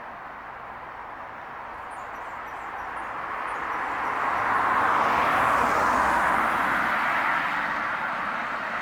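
Road traffic: a vehicle passing, its tyre and engine noise swelling to its loudest about five seconds in and then easing off.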